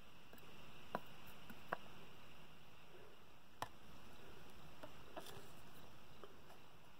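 A few light, sharp clicks and fainter ticks from handling a circuit board while desoldering its transistor leads, over low steady hiss. The clicks come about a second in, just under two seconds in, and at three and a half seconds, with softer ticks after that.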